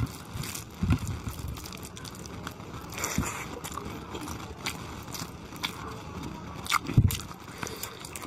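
Close-up eating sounds: a hand squishing and mixing khichuri rice with chicken curry gravy on a plate, then wet chewing and lip smacks as chicken goes into the mouth. There are many small clicks and two heavier thumps, about a second in and about seven seconds in.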